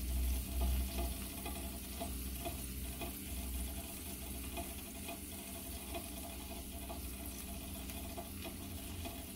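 Tomato slices frying in butter in a skillet: a soft, steady sizzle with faint scattered pops, while pieces of ham are laid into the pan.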